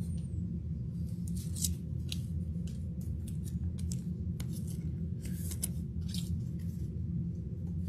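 Trading card packs and cards being handled, with short scattered snips, clicks and rustles over a steady low hum.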